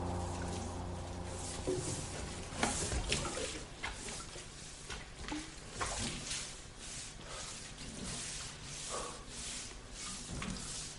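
A deep ringing tone dies away, then faint, scattered clicks and knocks follow at irregular intervals.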